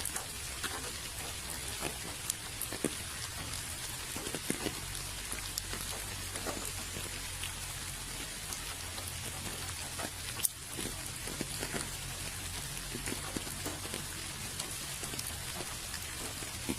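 Steady rain falling, a continuous hiss with individual drops ticking irregularly on a surface, one of them sharper about ten seconds in.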